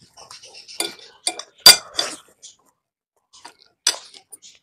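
Eating utensils clinking against a dish of noodles: several sharp clinks, the loudest about a third of the way through, then a short pause and two more near the end.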